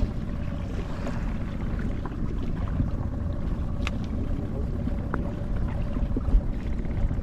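Fishing boat at sea: a steady low rumble with a faint constant hum, and a few light knocks about 4 and 5 seconds in.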